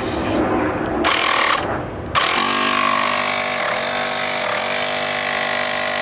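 Two short rushing noises, then a small engine starts suddenly about two seconds in and runs steadily, dipping briefly twice.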